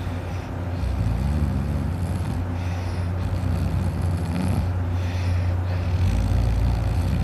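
A man snoring heavily in deep sleep, a low snore that swells and fades with his breaths, getting louder about a second in and again near the end.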